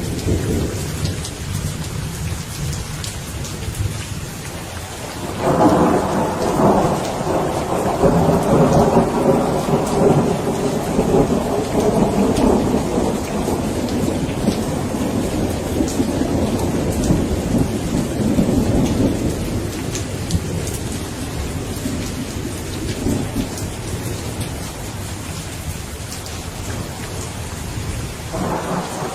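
Steady rain falling, with a long roll of thunder that breaks suddenly about five seconds in, stays loud for several seconds and slowly rumbles away. Another roll of thunder starts near the end.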